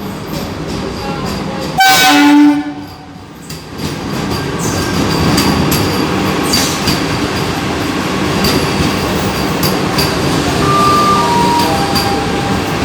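Train horn sounding one short, loud blast about two seconds in, followed by the steady running noise of a Vande Bharat express electric trainset rolling along the platform, with wheels clicking over rail joints.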